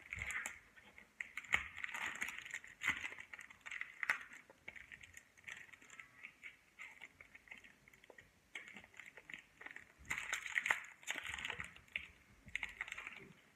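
Foil wrapper of a Pokémon card booster pack crinkling and crackling as fingers pick and pull at it, trying to tear it open. The sound comes in irregular bursts, busiest in the first few seconds and again around ten seconds in.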